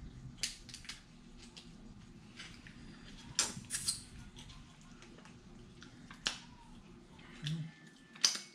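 Eating sounds at a seafood boil: scattered sharp clicks and cracks a second or so apart, the loudest near the end, over a faint low room hum.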